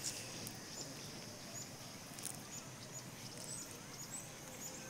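Quiet outdoor ambience: faint, short, high-pitched bird chirps about two a second over a steady high hiss.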